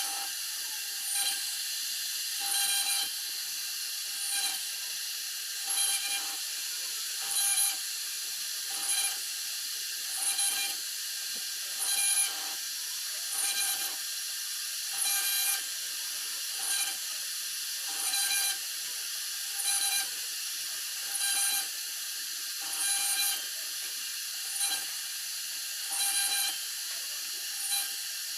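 CNC router spindle running with a steady high whine while its bit carves a lasani sheet. The cutting noise swells briefly and evenly, about every one and a half seconds, as the bit passes back and forth through the board.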